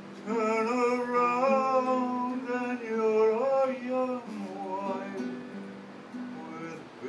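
A man singing a song to an acoustic guitar that is being played. The singing is loudest in the first half and softer after that.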